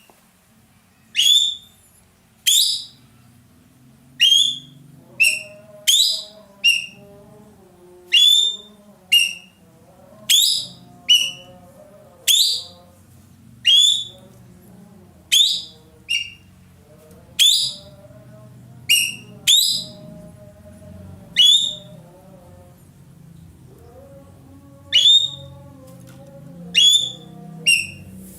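Ekek keling (green magpie) calling loudly: short, sharp whistled notes that each sweep steeply downward, repeated every second or two and sometimes in quick pairs. A softer, lower warbling runs underneath in places.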